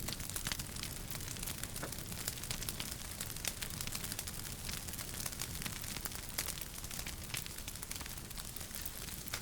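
Wood fire burning in a fireplace: frequent small crackles and sharp pops over a low steady rumble of flames.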